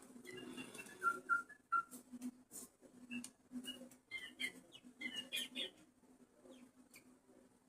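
Young chick peeping in short, high-pitched chirps, with a steady low hum underneath.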